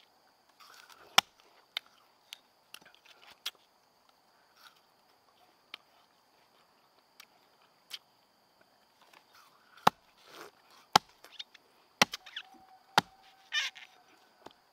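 Irregular sharp knocks and chops from hand work with tools, in small groups, loudest in the last few seconds, over a steady high-pitched whine.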